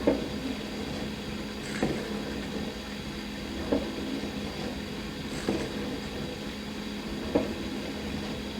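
Dishwasher running, a steady motor hum under a wash of spraying water, with a short louder splash about every two seconds.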